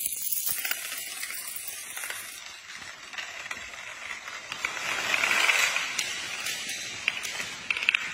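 A domino-effect chain toppling: a fast, continuous clatter of many small pieces tapping down one after another, first a line of coins, then long rows of upright cards. The clatter swells to its loudest about five seconds in, with a few sharper clicks near the end.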